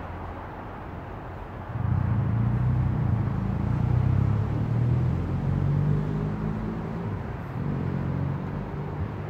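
Low engine rumble of a passing motor vehicle over a steady background hum; it swells up suddenly about two seconds in and slowly fades toward the end.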